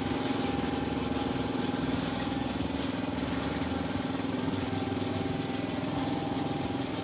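Small engine of a power sprayer running steadily at a constant speed, pumping liquid fertilizer, with the hiss of the spray leaving the wand's nozzle.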